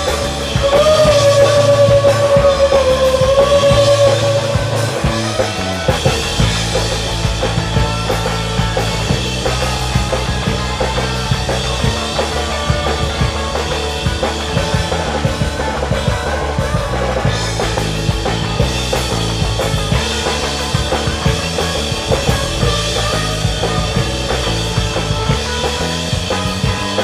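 Rock band playing live with drums, guitar and bass. A held, wavering high note stands out for the first five seconds or so, then the band carries on with a steady drum beat.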